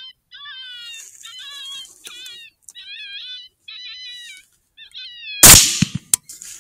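A single rifle shot from a DNA Firearm Systems AR-10 in .243 Winchester, the loudest sound, about five and a half seconds in. Before it comes a steady run of short, high, wavering animal calls, repeating a little more than once a second, played by an electronic predator caller.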